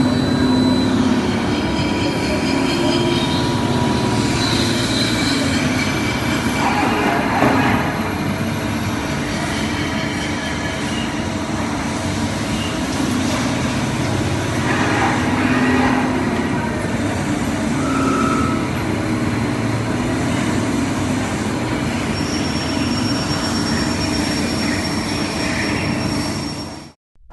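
Mori Seiki MT 2002 SZ twin-spindle lathe running: a steady, loud mechanical noise with high whining tones that come and go, cutting off suddenly near the end.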